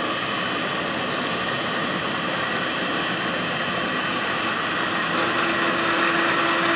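Workshop machine running steadily with a constant hum and hiss. About five seconds in, a steady tone joins and the hiss grows louder.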